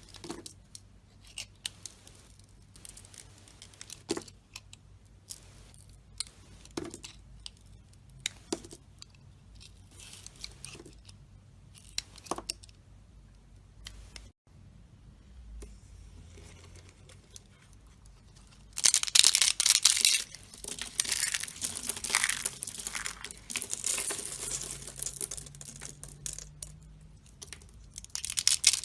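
A blade cutting dry soap: scattered light scrapes and clicks for the first half, then, after a cut, dense loud crunching and crumbling of soap from about two-thirds of the way in.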